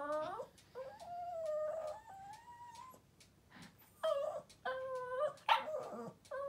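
Small dog whining and yowling in a string of high, wavering calls, long and drawn-out at first, then shorter and choppier in the second half: begging for chicken.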